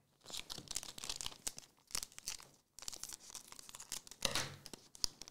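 Foil wrapper of a Magic: The Gathering booster pack being torn open and crinkled by hand, in two stretches of crackling with a brief pause between.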